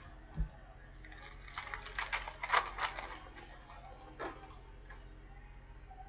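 Trading cards and their packaging being handled: a low thump, then a quick run of clicks and rustles, with one more click a little later.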